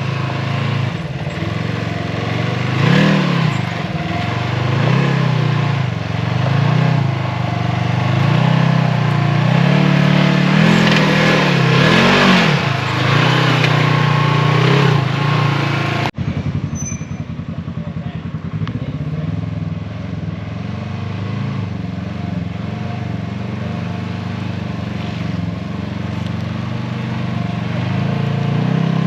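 Off-road vehicle engine revving up and down again and again, as in working up a rock climb. About halfway through it cuts off abruptly and comes back running steadier.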